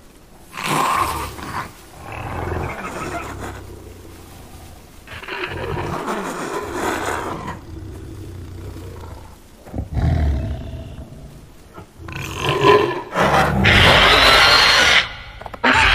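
Film sound design of a zombie deer's creature vocalisations: harsh, rasping growls in about six bouts of a second or two each, growing louder, with the last and loudest near the end.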